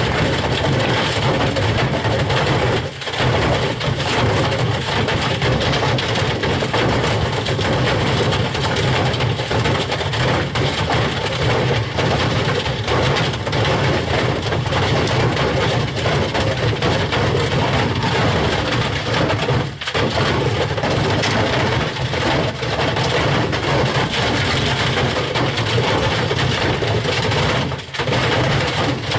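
White Knight tumble dryer running hard with heavy loose objects clattering and banging around inside its drum, a continuous loud rattling racket with brief lulls about three seconds in, about two-thirds through, and near the end.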